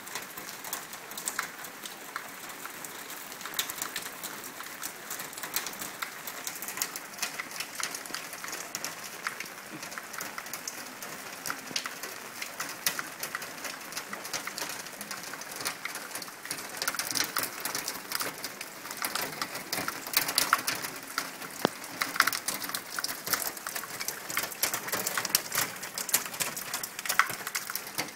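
Rainwater overflowing from a blocked downpipe hopper and split pipe, splashing and dripping down a brick wall. It makes a steady patter of many small splashes and drips, busier and louder in the second half.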